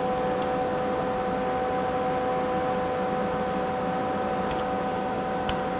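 Steady machine hum from the CNC knee mill and its control gear, carrying two steady tones over a noise hiss, with a couple of faint clicks near the end.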